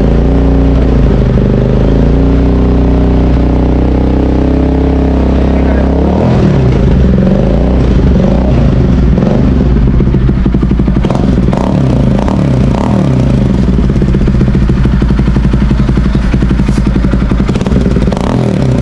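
Bajaj Pulsar NS200's single-cylinder engine running through a newly fitted aftermarket exhaust, its note shifting about six seconds in. A few short sharp crackles come through later on.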